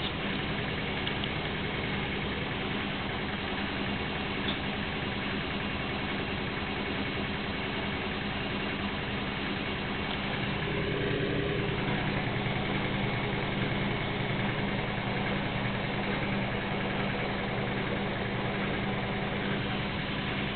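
Gorenje washing machine on its extra-spin programme: the motor and spinning drum give a steady humming whine, swelling slightly about halfway through.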